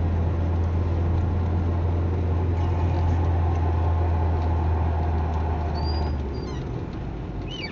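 Low, steady drone of a car's engine and road noise heard inside the cabin while driving. The drone drops away about six seconds in, and a few short high chirps come near the end.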